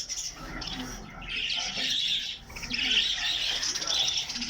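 Many small cage birds chirping and chattering together in a continuous high-pitched din, briefly thinning about a second in and again past the middle.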